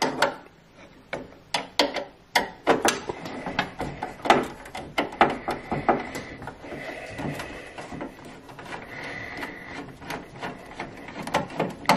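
Irregular clicks and knocks of a tool and metal parts inside a Worcester 25i ERP combi boiler as the screw securing the hydroblock is undone. A faint high whine comes and goes through the middle.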